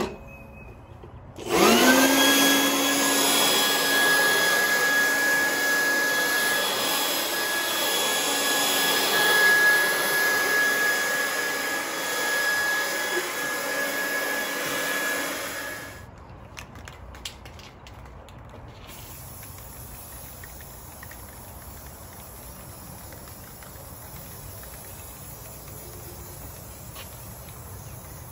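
Corded electric leaf blower starting up with a rising whine, then running steadily as it blows sanding dust out of a plastic kayak hull before priming, and cutting off abruptly after about fourteen seconds. Quieter outdoor background follows.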